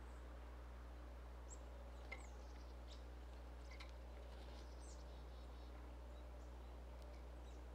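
Faint, scattered short bird chirps, a few a second at times, over a steady low hum.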